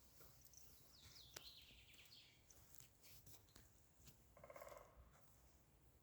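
Faint forest birdsong: quick high chirping phrases, then one louder, lower, buzzy call about four and a half seconds in, with a few soft clicks scattered through.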